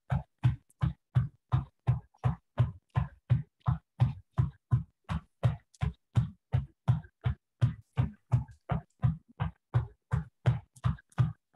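Feet thudding on a rug-covered floor in a steady rhythm of about three to four landings a second during high knees in place.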